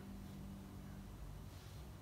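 Quiet room tone with a faint steady low hum.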